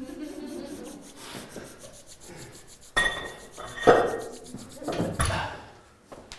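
Hands rubbing chalk into the palms, with a few sharp slaps and rubs of palm on palm between about three and five and a half seconds in.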